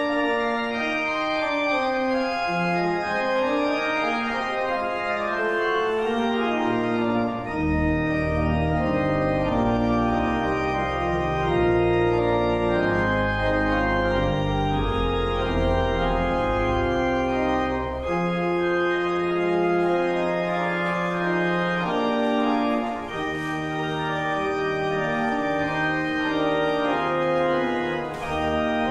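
Organ playing a slow piece in sustained chords, with deep pedal bass notes joining for a long stretch in the middle.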